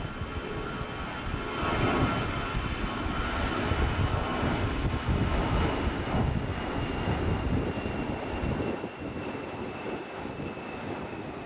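Departing airliner's engines at take-off power: a heavy rumble with a thin high whine over it. It grows louder for the first few seconds, then eases and fades as the plane moves away.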